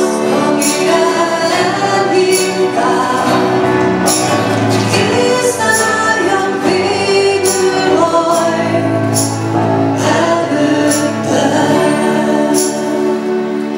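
Live church worship music: voices singing a hymn to keyboard and acoustic guitar accompaniment, with short percussive ticks on a roughly regular beat.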